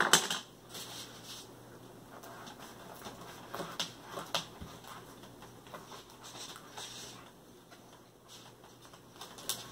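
A plastic knife sawing through a crusty ciabatta roll on a paper plate: irregular scraping and crackling strokes with small clicks. There is a sharp knock right at the start.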